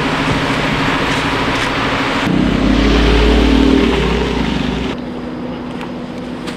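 Street traffic noise with a steady hiss; about two seconds in a motor vehicle's engine rumbles loudly for a couple of seconds, then the sound drops abruptly to quieter traffic with a steady low hum.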